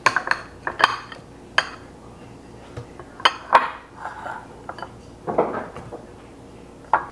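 Kitchen tongs clinking against a glass bowl and a plastic blender cup as strawberries and banana pieces are dropped in: a string of irregular clinks and taps, with a brief scrape a little after the middle.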